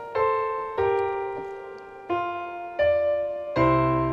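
Background piano music: slow notes and chords, each struck and left to ring away, with deep bass notes joining near the end.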